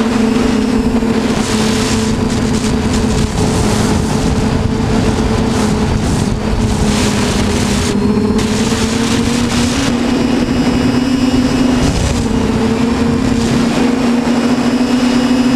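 Electric motors and propellers of a TBS Discovery quadcopter in flight, a steady droning hum heard from the onboard camera, with a rushing noise over it. The pitch dips briefly about three-quarters of the way through.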